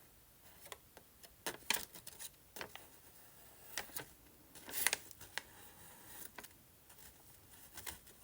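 Paper being handled at a craft table: scattered small clicks and taps, with a brief rustle about five seconds in.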